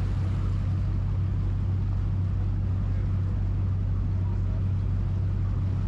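Engine of a party boat under way, a steady low drone.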